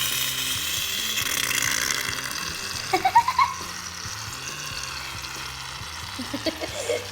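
Aerosol can of shaving cream spraying foam in a steady hiss that fades slowly over several seconds, with soft background music underneath.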